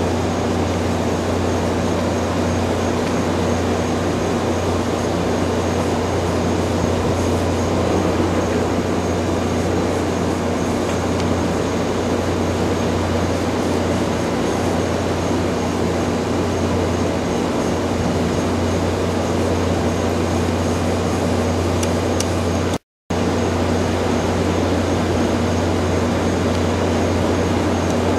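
Steady machine hum with a rushing whir, unchanging in level, with a low hum and a faint high whine running through it. It drops out for a split second about 23 seconds in.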